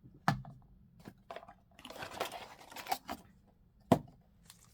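Plastic packaging crinkling as the blind-box pendant is handled, with two sharp clicks or taps, one just after the start and a louder one near the end.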